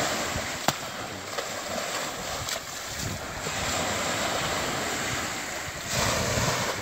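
Surf washing on the beach with wind buffeting the microphone, a couple of sharp knocks in the first few seconds, and a louder rush of water near the end.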